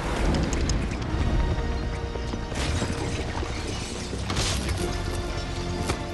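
Action-film soundtrack: score music under a barrage of bullet impacts, with shattering and crashing as shop shelves and their goods are shot apart. The hits are densest in the first couple of seconds.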